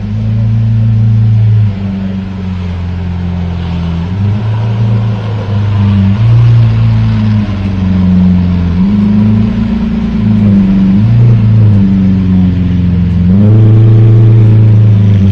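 A car engine running loud and close, its pitch stepping up and down as the revs change. The revs rise again about 13 seconds in.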